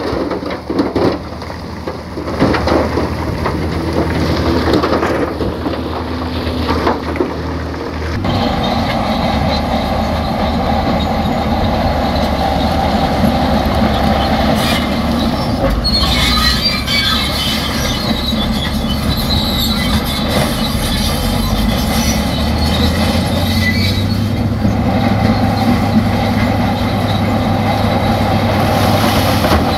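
Heavy earthmoving machinery at work: loose rock and earth clattering with scattered knocks for the first eight or so seconds, then a diesel engine running steadily under load with metallic squealing and clanking.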